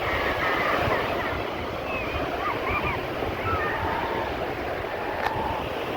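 Sea surf washing steadily, with wind buffeting the microphone. A few faint high calls sound in the first half, and a single sharp click comes about five seconds in.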